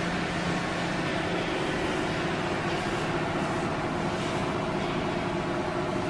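ENERPAT VB 30S vertical baler's electric hydraulic pump running steadily: a loud hum with a whine. The whine changes pitch about a second and a half in.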